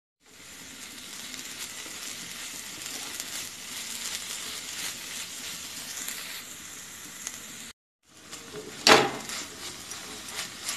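Grated coconut and sugar sizzling in a hot kadai, stirred and scraped with a silicone spatula. A steady crackling hiss, with a single sharp knock about nine seconds in.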